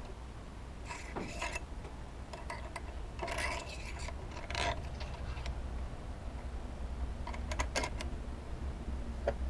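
Pen-turning mandrel parts handled by hand: the walnut blank and metal bushings sliding along the steel mandrel rod, with scattered scrapes and light metal clicks as the bushes are turned round.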